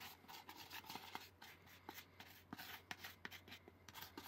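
Faint, irregular soft taps and rubbing of hands kneading a small lump of cookie dough into a ball.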